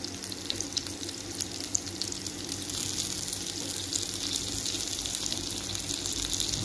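Besan cheela batter sizzling and crackling as it fries in oil in a frying pan. The sizzle grows fuller about three seconds in.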